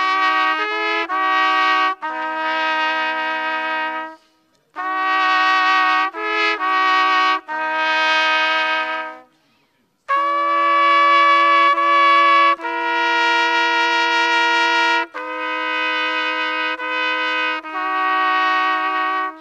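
Two trumpets playing a slow melody in two-part harmony, in three phrases with short breaks about four and nine and a half seconds in. The last phrase is held in longer notes.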